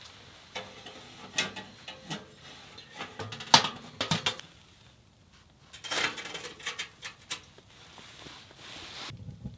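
Handling noises: a string of clinks, knocks and clatters of hard objects being moved, the sharpest about three and a half seconds in and another busy run around six seconds. A low steady rumble comes in just before the end.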